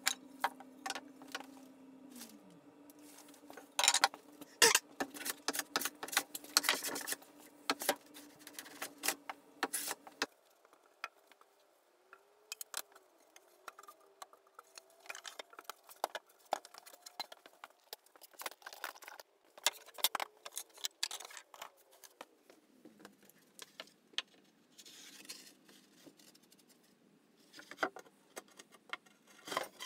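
Hand-tool woodworking at a bench: a bench plane taking shavings off a spruce board in quick strokes, then wooden boards and tools knocking and clattering on the workbench. A steady low hum runs under the first part and stops about ten seconds in.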